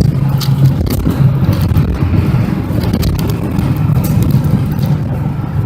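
School bus engine running under way, a steady low drone, with frequent sharp clicks and knocks heard over it.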